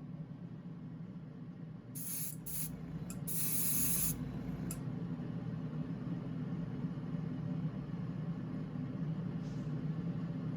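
Paint being sprayed in short hissing bursts: a few quick bursts about two seconds in, then a longer one lasting nearly a second. A steady low hum runs underneath.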